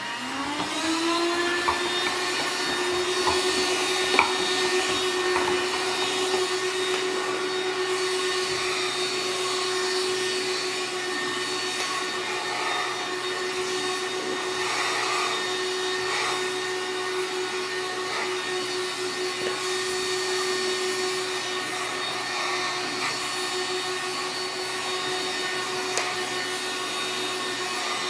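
AIRSEE cordless handheld vacuum cleaner switched on: its motor whines up in pitch over about the first second, then runs steadily with a high whine over rushing air. A couple of light knocks come through as it is moved about.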